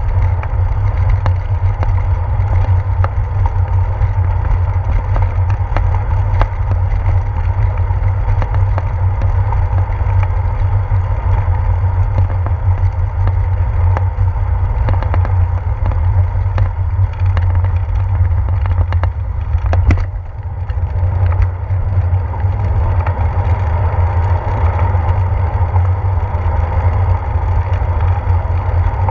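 Bicycle rolling over a brick-paved street, heard through a handlebar-mounted GoPro Hero 4: a loud, steady low rumble from the road vibration, with frequent small clicks and knocks as the bike bumps over the bricks. There is one sharp knock and a brief dip in level about two-thirds of the way in.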